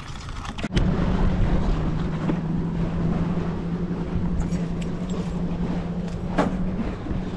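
A boat motor running steadily, a low even hum with wind and water noise, and a single sharp click near the end.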